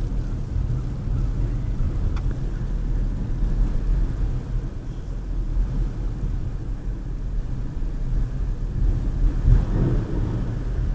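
Steady low rumble of a car driving slowly, heard from inside the cabin, with a faint click about two seconds in.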